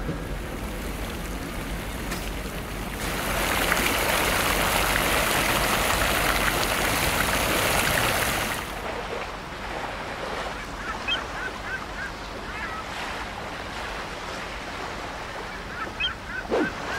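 A steady wash of water noise, louder from about three to nine seconds in as water drops splash onto a wet surface, then softer. Short bird calls come in small runs about eleven seconds in and again near the end.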